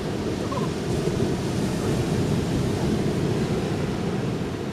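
Ocean surf washing onto a beach, a steady rushing sound heaviest in the low end.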